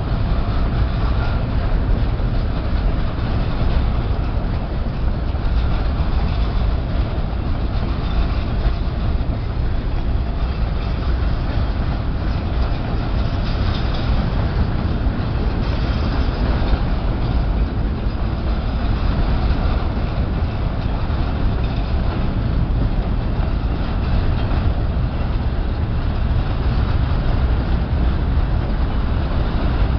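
Empty grain hopper cars of a long freight train rolling fast through a level crossing: a steady, unbroken noise of steel wheels running on the rails.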